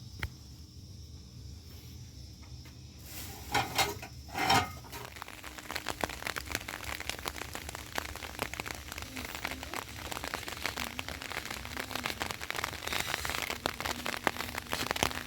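Rain starting to fall, drops pattering densely on a surface and growing heavier. Two short loud sounds come just before the rain sets in, about four seconds in.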